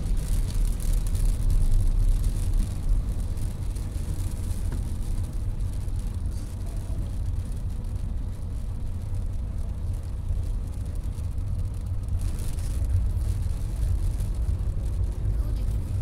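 Car driving on a rain-soaked road, heard from inside the cabin: a steady low rumble of engine and tyres with a hiss of water on top.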